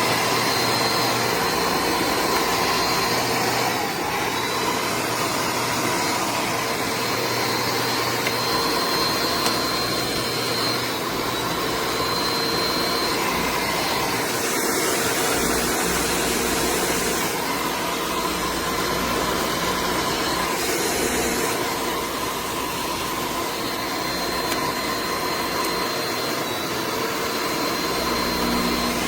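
Electric fake snow machine running: a steady blower rush with a thin high whine, with a brighter hiss for a few seconds around the middle.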